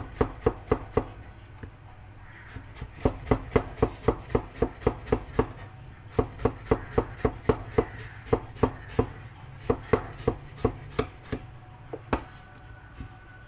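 Knife chopping food on a cutting board in quick, even strokes, about four a second, in several runs broken by short pauses, stopping about eleven seconds in.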